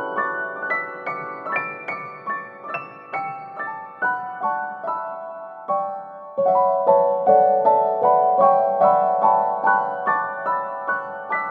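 Gentle piano music: a steady flowing run of single notes, growing louder a little past halfway.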